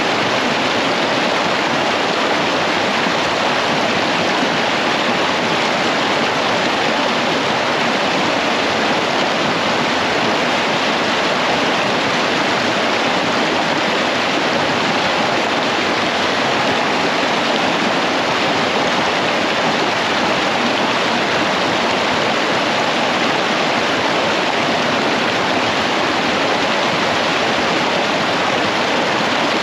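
Shallow creek rushing over rocks in fast white-water riffles: a steady, unbroken rush of water.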